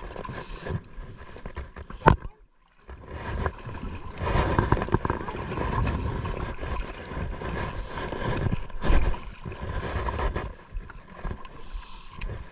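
Water splashing and sloshing at a small outrigger boat's side, with wind noise on the microphone. There is a sharp knock about two seconds in, a brief moment of near silence, and then steady sloshing while the line is brought up to the surface.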